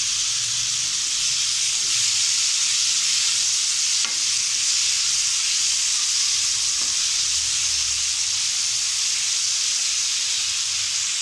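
Marinated chicken pieces sizzling steadily in hot oil in a nonstick frying pan as they are stirred, with a couple of faint knocks of the utensil against the pan.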